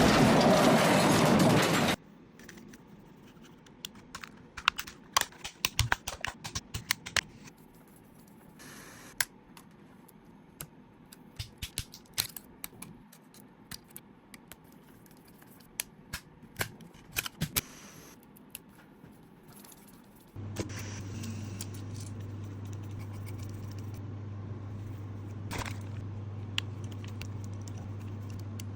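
Scattered small clicks and taps of small tools and plastic parts being handled during repair work on a DJI Mini 4 Pro drone, after about two seconds of loud noise at the start. About twenty seconds in, a steady low hum starts and carries on.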